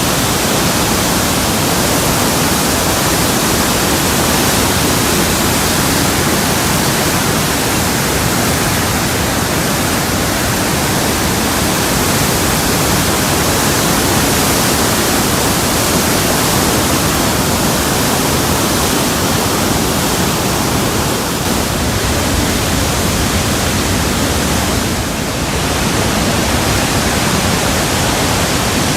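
Orange River in flood pouring over Augrabies Falls: a loud, steady, dense rush of falling water, easing only slightly for a moment near the end.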